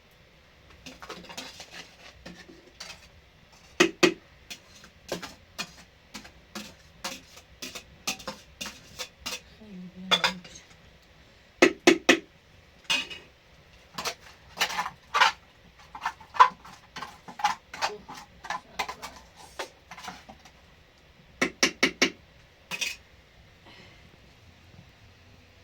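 Pots, dishes and utensils being handled: irregular knocks, clinks and clatters, a few of them ringing briefly.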